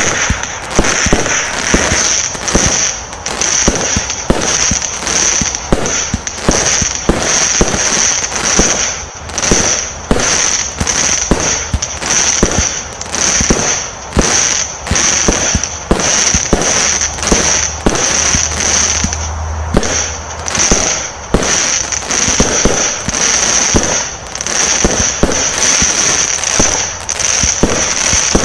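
Vivid Pyrotechnics Professor X, a 64-shot, 20 mm firework cake loaded with crackle, firing fast: a steady run of sharp shots and bursts a fraction of a second apart.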